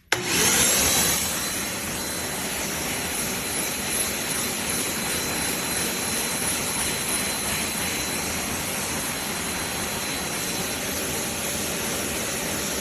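Wet/dry shop vacuum switched on and running: its motor starts abruptly, is loudest for about the first second as it spins up, then settles into a steady rushing hum with a thin high whine.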